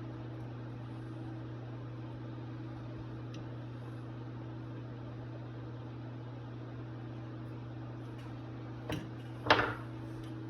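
Steady low electrical hum throughout, with a click about nine seconds in and a brief, louder hard clatter just after, like a small part being handled or set down during a carburetor teardown.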